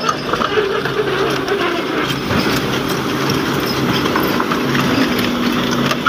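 Volvo EC210 crawler excavator running, its diesel engine humming steadily under a rapid, continuous clatter of metallic knocks.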